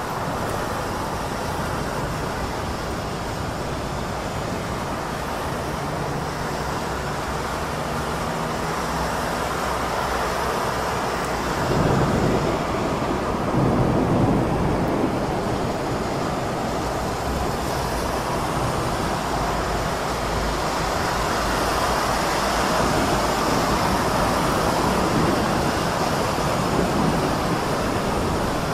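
Heavy city rainstorm: steady rain with traffic noise beneath it, and two louder swells about twelve and fourteen seconds in.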